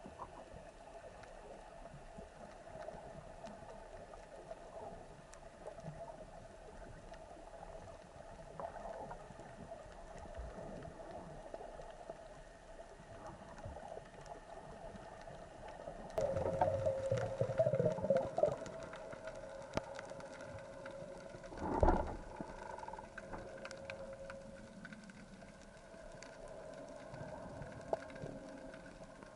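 Underwater ambience picked up by a camera in its housing during a spearfishing dive: a steady low hum with faint scattered crackling. Past the middle comes a louder rushing noise lasting about two seconds, and a few seconds later a single sharp thump.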